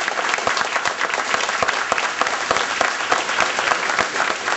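A group of people applauding, many hands clapping continuously.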